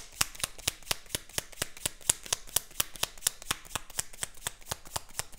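Tarot deck being shuffled by hand, the cards clicking against each other in a quick, even patter of about eight clicks a second.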